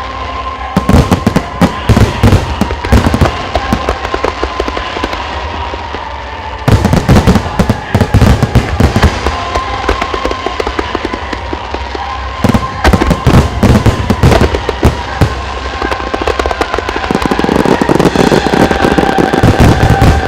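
Aerial fireworks shells bursting in rapid volleys of loud bangs and crackles, coming in four waves, with music playing underneath. The last wave swells into a dense, continuous barrage.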